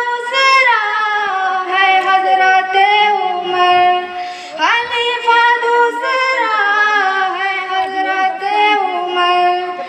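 A child's voice singing a tarana, a devotional song, in long held notes that slide between pitches. A new line starts with a rising note about halfway through.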